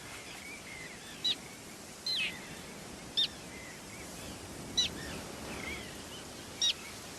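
Common terns calling at a breeding colony: about five short, high, harsh calls a second or two apart, over a steady outdoor hiss.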